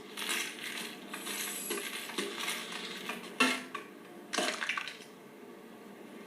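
A run of clattering knocks and clinks of hard objects, with the loudest hit about three and a half seconds in and another about a second later.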